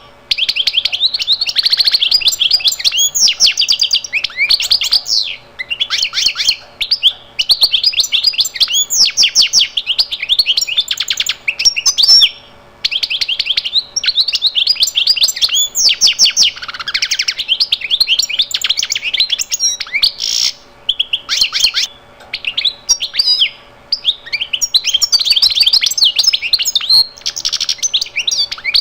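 Small birds chirping and twittering in a dense run of rapid high notes, broken by a few brief pauses.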